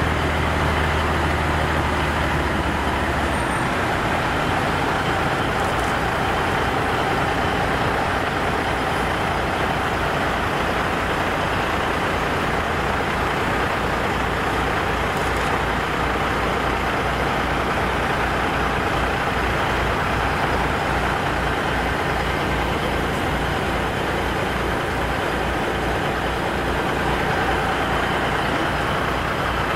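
Heavy diesel trucks moving slowly past in a line, a steady engine rumble with a rapid low throb.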